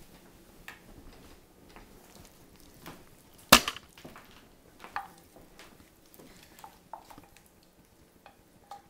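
Scattered knocks and clicks of a stainless-steel cooking pot being handled and carried, with one sharp clack about three and a half seconds in.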